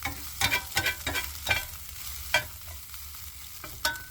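Utensil scraping and clinking in a frying pan while hash browns fry, a string of short, irregular strokes.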